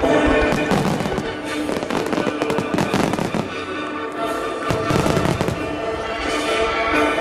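A starmine barrage of fireworks: rapid, overlapping shell bursts and crackle, densest in the first few seconds and again around the middle, over music that plays throughout.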